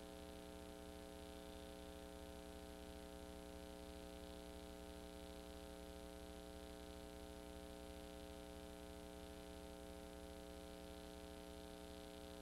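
Near silence: a faint, steady electrical hum with a light hiss, unchanging throughout, and no sound from the parade itself.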